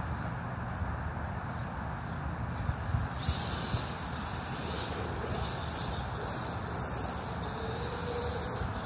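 Losi DBXL-E 2.0 electric buggy driving across grass, its sensored brushless motor (Castle 2028 on a Mamba XLX controller, 17-tooth pinion) whining high, the pitch rising and falling with the throttle, mostly from about three seconds in until near the end.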